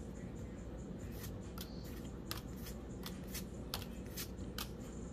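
Pokémon trading cards flipped through by hand, each card slid off the front of the stack to the back with a short, crisp snap, about two a second at an uneven pace. A steady low hum runs underneath.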